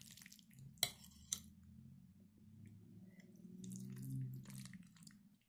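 Metal spoon stirring through wet chicken noodles in a crock pot, with soft squishing and two sharp clicks of the spoon against the pot about a second in. A low hum swells underneath about four seconds in.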